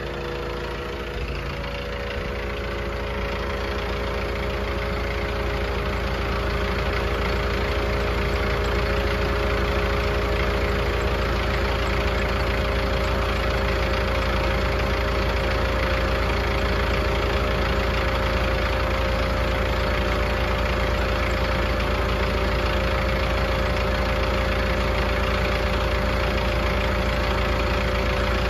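The Mahindra 6500 tractor's 60-horsepower diesel engine idles steadily while a small Pittsburgh 12V tire-inflator compressor runs, pumping up a tractor tire. The sound grows louder over the first few seconds, then holds steady.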